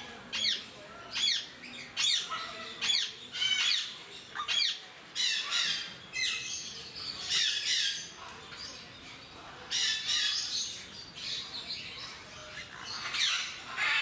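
Timneh grey parrots calling: a run of short whistles and squawks that sweep quickly up and down in pitch, in clusters with brief pauses between.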